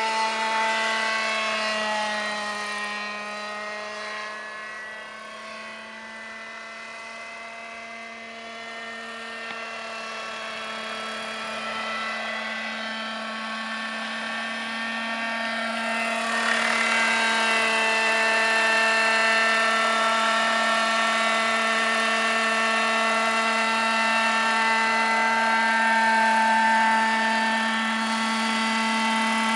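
Petrol-engined radio-controlled scale Robinson R22 helicopter (Vario) running at a steady pitch with its rotors turning. It grows fainter as it flies off, then louder from about halfway as it comes close and hovers low.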